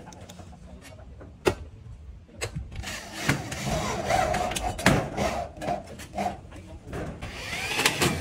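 Corded electric drill driving a screw through a galvanized corrugated steel roof sheet: a few sharp knocks, then a gritty whirring for several seconds as the screw bites into the metal, and a short whine of the drill near the end.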